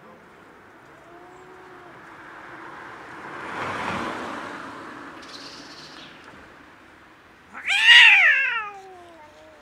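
A cat gives one loud meow near the end that falls in pitch, after a faint short cry about a second in. In the middle a rushing noise swells and fades.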